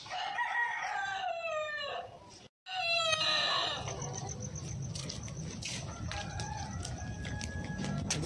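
Chicken calling: a long drawn-out call of about two seconds that falls in pitch. After a short break comes a second, shorter falling call, then only a low steady background noise with faint clicks.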